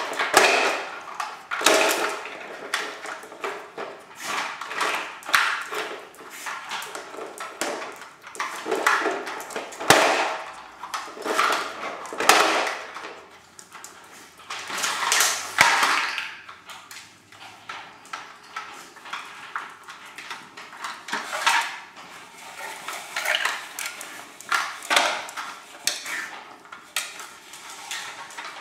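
Irish terriers dragging and nosing plastic treat-puzzle toys across a tile floor: irregular clattering, knocking and scraping of hard plastic pieces on the tiles.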